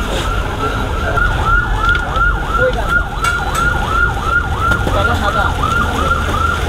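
Electronic siren warbling fast, each call sweeping down in pitch about three times a second, cutting out near the end. Underneath runs the steady sizzle of chicken and onions frying on a large flat griddle.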